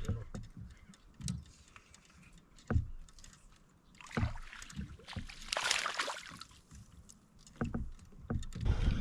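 Scattered knocks and bumps on a kayak, a second or so apart, with a short rush of noise about six seconds in.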